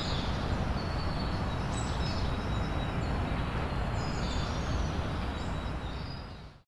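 Outdoor park ambience: a steady low rumble with birds chirping here and there. It fades out to silence near the end.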